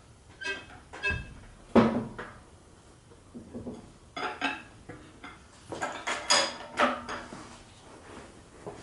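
Scattered metal clanks and knocks, a few with a short ringing, as the engine is wiggled and pushed to line it up with the transmission; the loudest knock comes about two seconds in.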